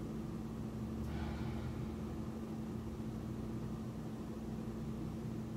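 Steady low electrical hum and hiss of room background, with a brief soft rush about a second in.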